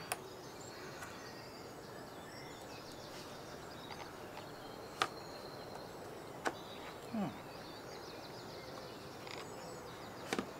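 Faint handling sounds from the plastic case of a Cambridge Audio Go V2 Bluetooth speaker being opened: a few sharp, widely spaced clicks and a short falling creak about seven seconds in, over a steady low hiss.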